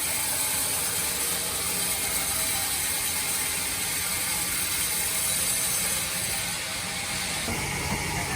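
Band sawmill machinery running steadily, with a high hiss that fades about six seconds in.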